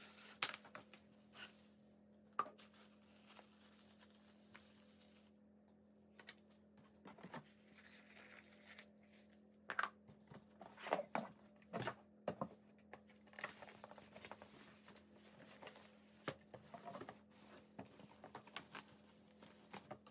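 Faint rustling, crinkling and tearing of packaging, with scattered light knocks and clicks at irregular intervals, as a product is unpacked and handled.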